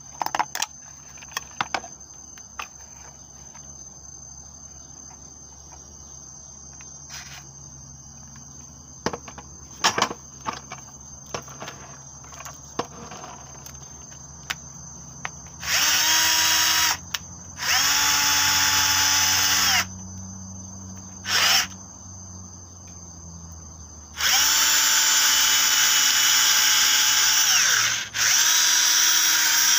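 Cordless drill spinning up and running in several short bursts, then a long run near the end, boring a twist bit into the end of a fresh wooden slingshot fork. Before the drilling there are only light clicks and knocks.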